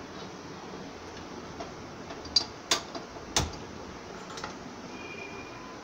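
Gas stove being turned on: a few sharp clicks of the burner knob and igniter between about two and three and a half seconds in.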